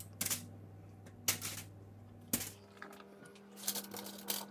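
Raw potato slices being laid by hand onto a foil-lined baking tray: irregular light taps and crinkles of the aluminium foil, a few strokes at a time, thickest near the end.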